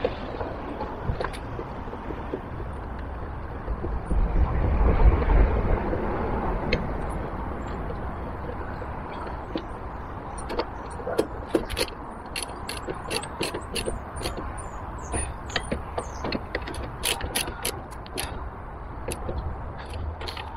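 A low rumble swells and fades about four seconds in. Then, from about halfway, a half-inch-drive ratchet with a Torx bit clicks sharply and irregularly, in quick runs, as the rack's bolts are tightened.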